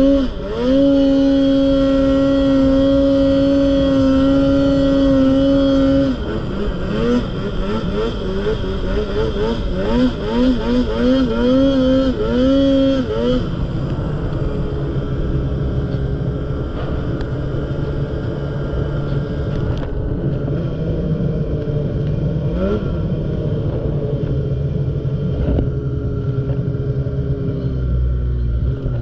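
Snowmobile engine held at high revs for about six seconds, then blipped on and off the throttle in quick rising-and-falling bursts, before settling to a lower, steadier run. The pitch drops near the end.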